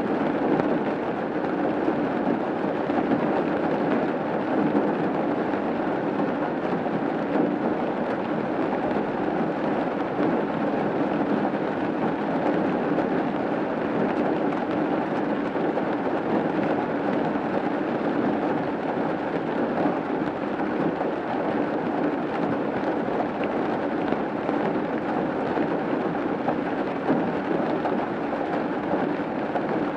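Steady rain falling on a roof: an even, dense patter with no separate drops standing out.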